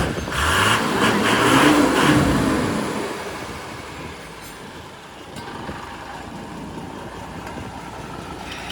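Truck engine revving, rising in pitch for about two seconds, then easing off to a lower steady rumble.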